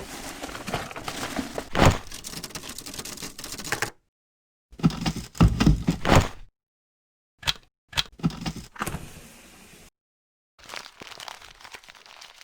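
Short edited clips of cracking, clicking and rattling, as of plastic printer parts being pried apart and handled, with a loud snap about two seconds in. The clips are cut apart by spells of dead silence.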